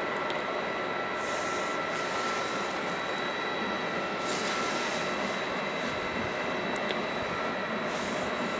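Steady mechanical drone of fire engines running their pumps to feed a water jet, with a faint constant whine on top. Three short hisses come about three seconds apart.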